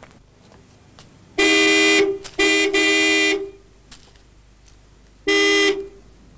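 Car horn honking: a blast about a second and a half in, then a short toot followed straight away by a longer blast, and one more blast about five seconds in.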